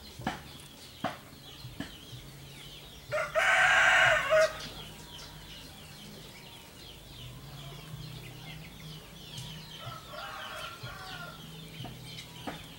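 A rooster crowing loudly once, about three seconds in, then a fainter crow about ten seconds in.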